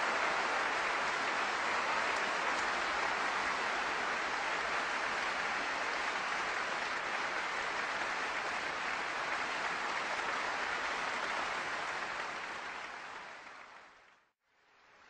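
Steady applause, clapping without rhythm, fading out near the end.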